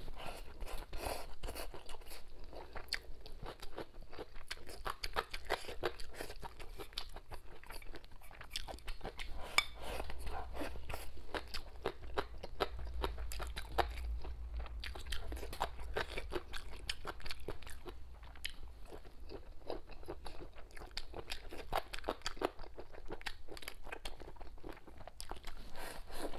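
Close-miked eating sounds: a person biting and chewing braised pig tail, a dense run of crunchy clicks from the mouth throughout.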